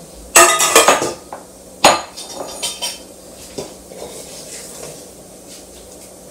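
Metal bakeware clattering: round cake pans and a stainless steel mixing bowl knocking against each other and the counter as batter is portioned out. A quick run of ringing knocks in the first second, one sharp knock just before two seconds in, then a few lighter knocks.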